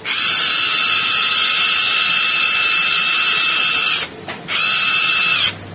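Powerbilt PBT-CL-WR21 cordless impact wrench running free with no load, a steady whine with no hammering. It is test-run after a new DC motor and switch board were fitted. The trigger is released for a moment about four seconds in, then pulled again for a second, shorter run that stops near the end.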